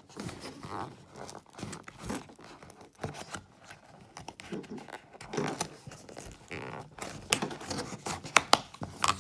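Small white cardboard box being opened by hand: the card flaps scrape and rustle as a tucked tab is worked loose, with irregular sharp clicks of the card, several of them near the end.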